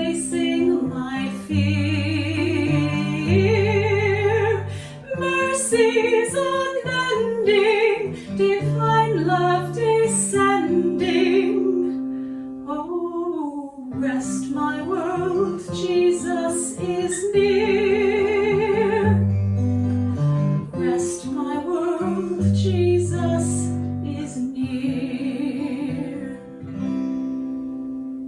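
A slow hymn sung with a wavering vibrato over guitar accompaniment, with long held notes. The last note fades away near the end.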